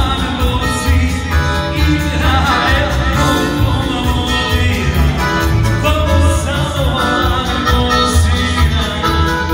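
Live Bosnian folk band playing a kolo dance tune through PA loudspeakers, with a singer and a steady bass beat.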